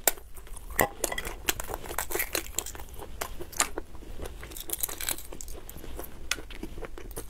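Shell of a boiled fertilized egg being cracked against another egg and picked off by hand: a run of small sharp cracks and crackles.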